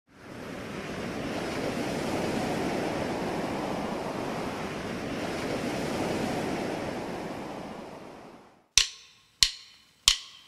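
Steady rushing of water, swelling in at the start and fading out about eight seconds in. Three sharp plucked-string notes follow near the end.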